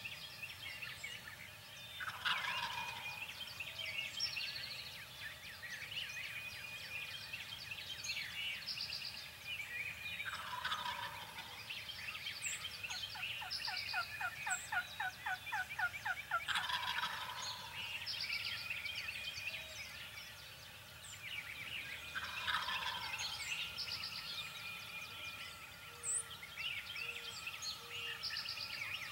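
Wild turkey gobbling four times, each gobble a rattling call that falls in pitch, with a long fast run of evenly spaced notes in the middle. Songbirds chirp throughout.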